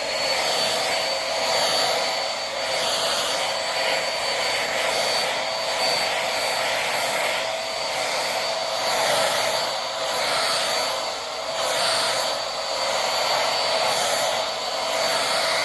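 Upright vacuum cleaner running steadily, a rushing airflow with a high motor whine and a lower steady hum over it.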